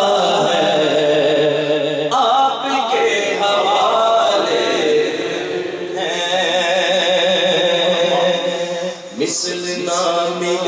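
A man sings a naat, an Urdu devotional poem, unaccompanied and amplified through a microphone, in long wavering held notes. There is a short break about nine seconds in, and a steady low drone sits beneath the voice.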